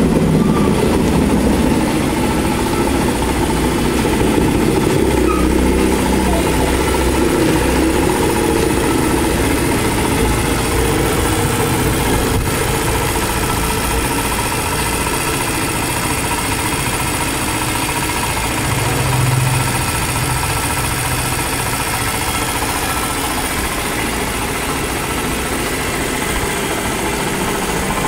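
Honda Monkey minibike's single-cylinder four-stroke engine idling steadily.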